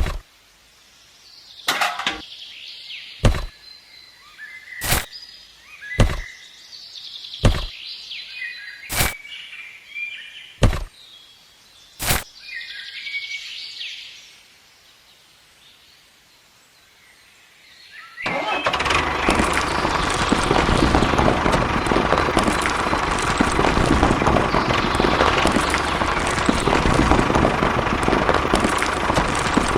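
Sharp knocks about every second and a half with birds chirping, then after a short lull a small motor starts running with a steady buzzing noise.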